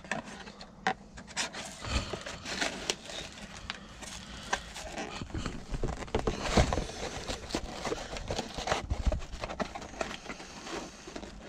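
A cardboard box and its packaging being handled and packed away: irregular taps, knocks and rustles.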